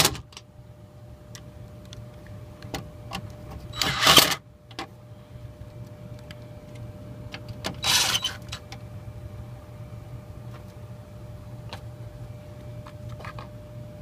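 Three brief, loud bursts of clattering and rustling about four seconds apart, with scattered small clicks, as tools and equipment are handled, over a steady low hum.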